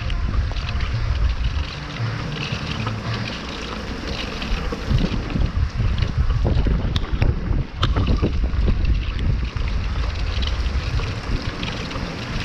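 Strong storm wind buffeting the microphone, a heavy low rumble under a steady rushing hiss, with scattered sharp knocks and clicks.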